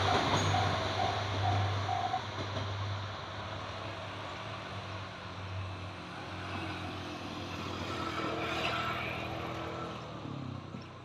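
Ibara Railway IRT355-type diesel railcar running away from a level crossing, its low engine hum and rail noise fading. The crossing's warning bell rings in a steady repeating ding for about the first two seconds, then stops.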